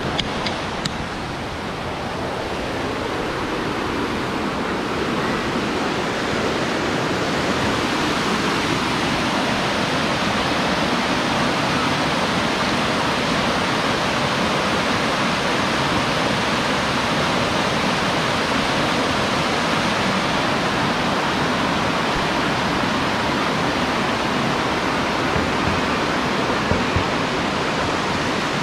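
Rushing water of a shallow, boulder-strewn stream tumbling over small cascades: a steady wash of noise that grows louder over the first few seconds, then holds.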